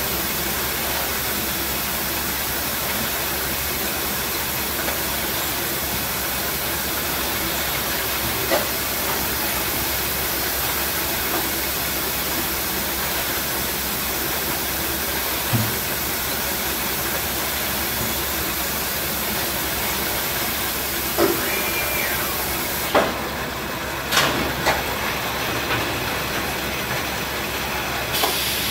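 Low-level palletizer and its powered roller conveyors running: a steady machine hiss and rumble, with a few scattered knocks as cases of bottled water move along, and a short whine about three quarters through.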